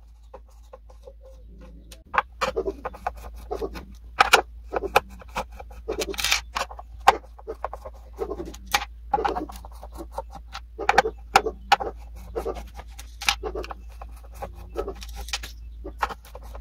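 Hand screwdriver backing the mounting screws out of a Teufel T 800 SW subwoofer's bass driver frame: irregular metallic clicks, ticks and scrapes as the screws turn and are set down on the wooden cabinet. A steady low hum runs underneath.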